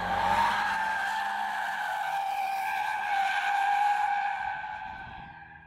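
Tyres of a Lexus RC 200t squealing hard as the car corners through a tight curve: one long, steady, high squeal that fades away near the end, with a low engine rumble underneath during the first second or so.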